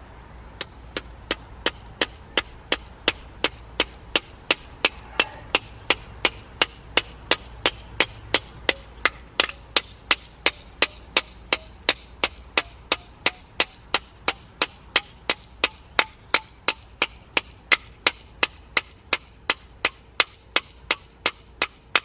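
The small built-in hammer head of a Cranach multitool striking a steel nail, driving it into the end grain of a wooden stump. Steady, evenly spaced blows of about the same strength, roughly three a second, beginning about half a second in.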